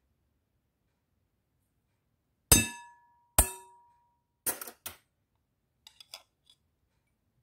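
Metal spoon striking a glass mixing bowl: two loud ringing clinks about a second apart, then two softer clinks and a few light clicks.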